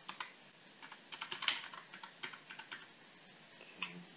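Typing on a computer keyboard: a run of short, irregular keystrokes, busiest in the middle and thinning out near the end.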